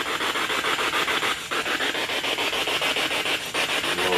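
A dense chorus of night insects, a fast steady rasping pulse, dropping out briefly twice.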